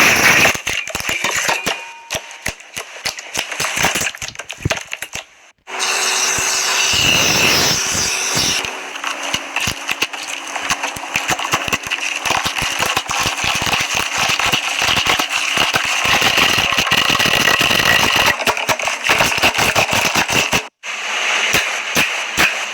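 Slime being worked by hand, with dense runs of crackling and popping clicks; the sound changes abruptly twice as the clips cut.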